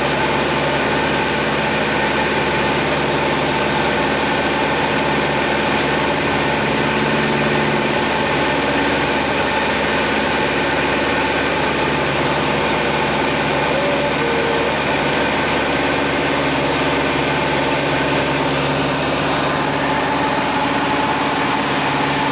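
Piston engine and propeller of a Van's RV-6 light aircraft in steady cruise, heard inside the cockpit as an even, unbroken drone.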